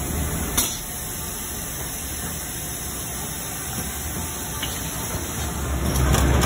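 Steady hum and hiss of boot-factory machinery, with a short sharp clack about half a second in; the noise grows louder near the end.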